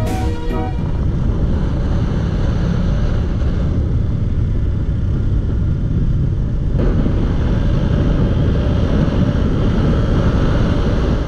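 Riding noise from a sport motorcycle at speed, heard from a camera mounted on the bike: wind rushing over the microphone with the engine running underneath.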